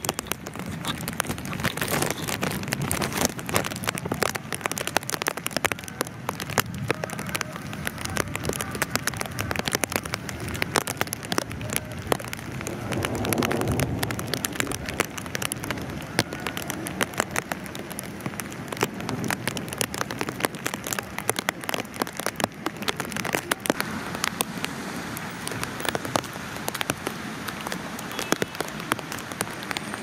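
Heavy rain in strong wind, with drops hitting close to the microphone as a dense stream of rapid ticks over a low rush of wind. A louder low swell rises and fades about halfway through.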